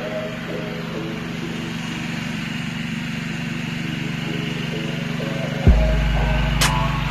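Gas pressure washer engine running steadily, with hip-hop music playing over it; a deep bass line comes in near the end.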